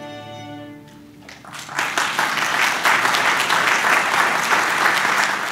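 A fiddle orchestra's final held chord of fiddles, cellos and bass fades out. About a second and a half in, audience applause breaks out and quickly grows loud.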